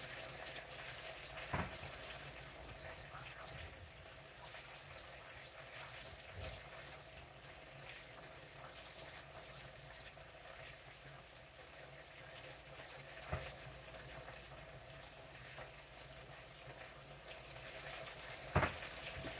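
Chicken wings shallow-frying in oil in a skillet: a steady, quiet sizzle. A few faint taps come through, about a second and a half in, about two-thirds of the way through, and near the end.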